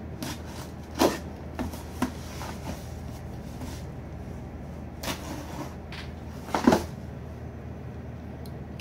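Cardboard shipping box handled and turned over, giving a few dull thumps and scrapes of the cardboard, the loudest about a second in and again about two-thirds of the way through.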